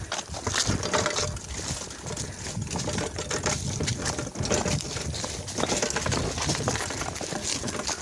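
A mountain bike pushed by hand up a rocky trail: its tyres bump and clatter over loose stones, mixed with footsteps scuffing on the rocks, in an uneven run of knocks.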